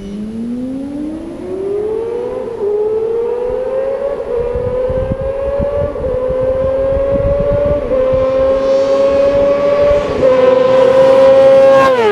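Yamaha R6 inline-four sportbike engine accelerating hard, its note climbing and then shifting up through the gears about four times, each shift a small dip in pitch before it climbs again. Near the end the note drops sharply.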